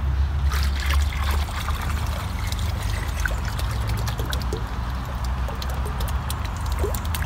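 Water poured out of a bucket into a pond, splashing and trickling, over background music.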